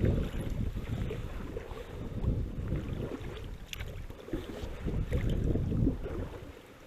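Wind buffeting the microphone, a gusting low rumble, with a few faint clicks or knocks.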